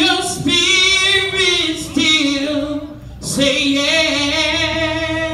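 A woman singing a gospel solo through a microphone: long held notes with vibrato in two phrases, the second beginning about three seconds in.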